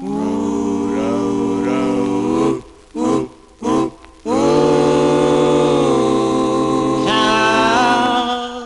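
Doo-wop vocal group singing close harmony: a long held chord, two short chords, then another long held chord, with a higher voice coming in on top near the end.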